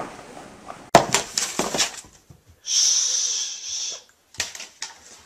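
Cat in a plastic cone on carpet: a run of clicks and knocks, then a breathy hiss lasting over a second, followed by a few more clicks.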